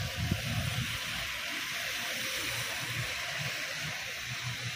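Heavy rain falling steadily, with a low rumble near the start.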